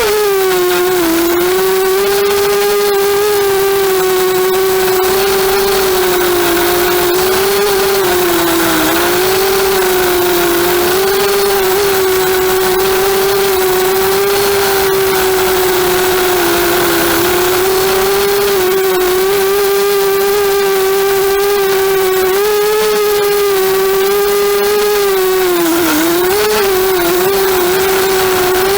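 250-size FPV racing quadcopter's electric motors and propellers whining steadily, the pitch dipping and recovering briefly a few times as the throttle changes.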